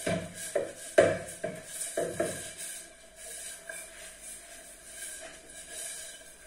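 Sharp knocks and clatters, about six in the first two and a half seconds, then only a faint steady hum.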